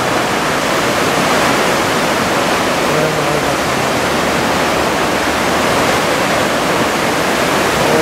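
Heavy surf from the swell left by a passing typhoon, breaking in a steady, even rush with no single wave standing out.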